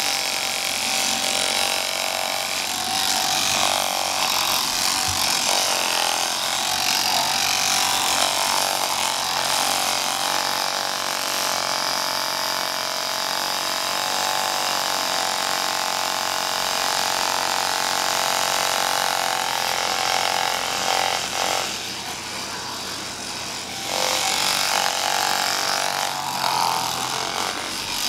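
An Oster electric hand massager, strapped to the back of the hand, buzzing steadily as its vibrating fingers work over a scalp. It drops quieter for about two seconds near the end, then picks up again.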